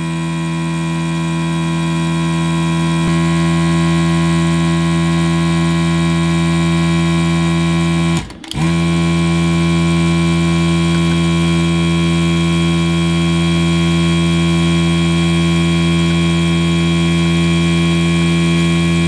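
Electric vacuum pump of a desoldering gun running with a steady hum while it sucks molten solder from a shield seam. It cuts out briefly about eight seconds in, then starts again.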